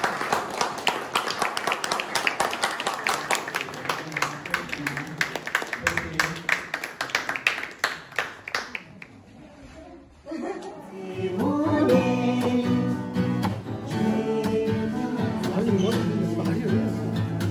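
A group of people clapping in a large hall, fading out after about eight seconds. After a brief lull, an acoustic guitar is strummed with singing.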